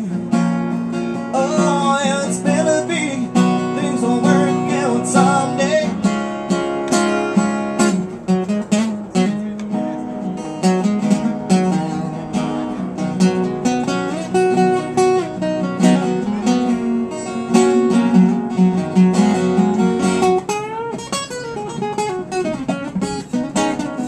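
Amplified acoustic guitar playing an instrumental break: quick picked notes and chords, with no singing.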